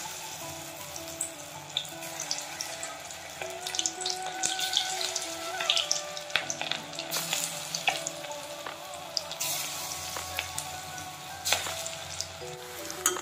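Chicken pakora batter deep-frying in hot oil in an iron kadai: a steady sizzle with scattered crackling pops. Background music with a simple melody plays under it.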